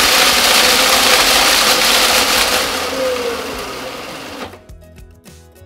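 Food processor motor running at speed, grinding Cheez-It crackers into fine crumbs; it fades and stops about four and a half seconds in.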